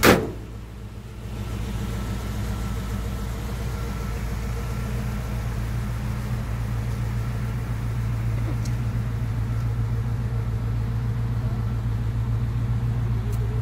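LT1 V8 of a 1954 Chevy pickup idling steadily, with the cab door slamming shut once at the start as a loud thud.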